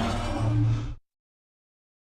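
A loud, rough sound effect with a low steady undertone that cuts off abruptly about a second in, then dead silence.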